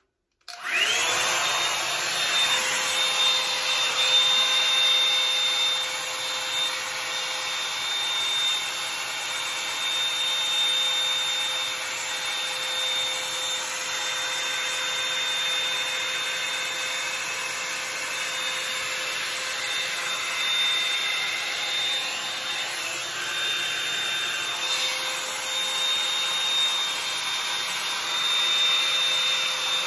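Bed Head Blow Out Freak hot-air volume brush switched on about half a second in: its fan spins up and then blows steadily, with a high whine over a lower hum.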